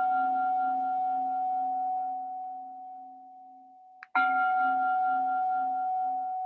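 A meditation bell with a singing-bowl-like ring, struck twice to mark the end of a silent prayer period. The first ring fades, and a second strike about four seconds in cuts it off and rings out again.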